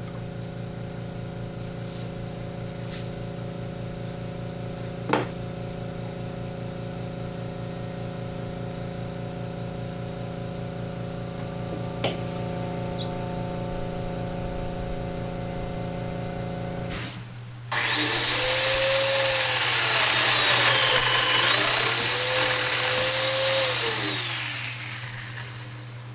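A woodworking power tool's motor humming steadily, with a couple of small clicks. After about seventeen seconds it turns loud and noisy for several seconds, its pitch sagging and recovering as it cuts under load, then fades.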